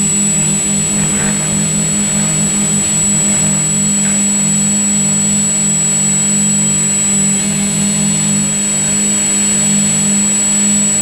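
Quadcopter drone's propellers and motors humming steadily in flight, with a thin high steady whine above the hum.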